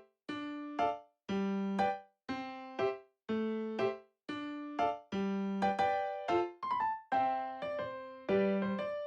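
Background music: an electric-piano melody in short phrases about a second long, each separated by a brief gap.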